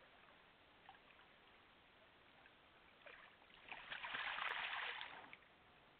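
Black bear moving through a shallow pond, the water sloshing and splashing around it in a burst of about two seconds past the middle, over a faint steady hiss.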